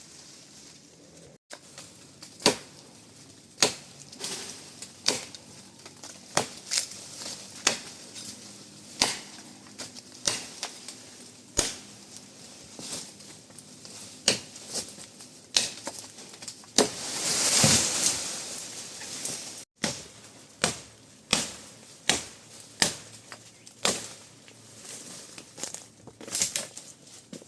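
Repeated sharp knocks, irregular at roughly one or two a second, with a longer stretch of rustling and crackling about two-thirds of the way through.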